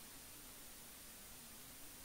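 Near silence: steady recording hiss with a faint low hum that wavers slightly in pitch and a faint high whine.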